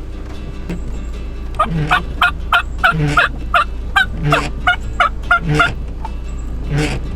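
Wild turkey yelping: a run of about a dozen short, evenly spaced yelps, about three a second, each dropping in pitch, over a steady low hum. A brief rush of noise comes near the end.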